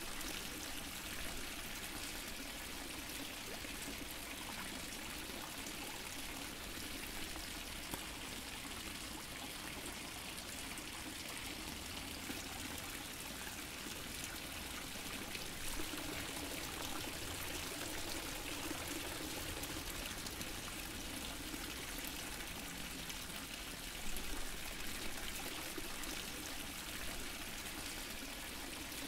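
Fountain water falling and trickling steadily, with a few slightly louder splashes now and then.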